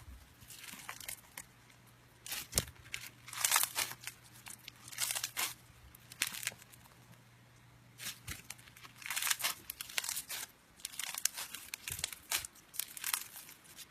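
Slime being squeezed and pulled apart by hand, giving irregular bursts of crackling and popping with short pauses between them.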